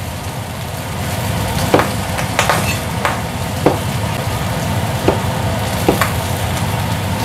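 Kitchen knife chopping bamboo shoot on a cutting board: about seven sharp, irregular knocks. Under them, a steady sizzle of squid cooking in a hot pan.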